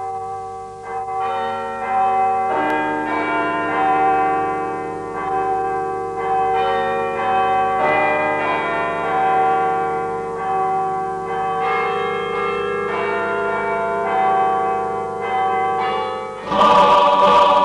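Church bells ringing a peal, many struck notes overlapping and ringing on. Near the end a louder, noisier burst covers the bells.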